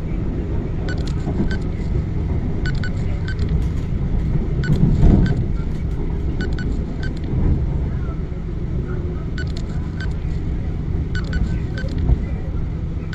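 Cabin noise of an MTR East Rail line R-Train electric multiple unit running at speed: a steady low rumble from the wheels on the rails, with short clicks coming through at irregular intervals. The rumble swells briefly about five seconds in.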